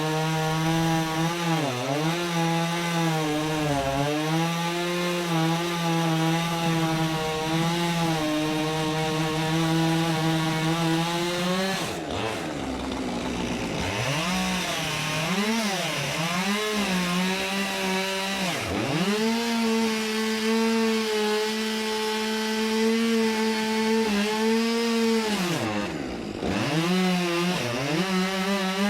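Chainsaw engine running while cutting wood. Its pitch sags again and again as the chain takes load, then recovers, with a deep dip about halfway through and another near the end.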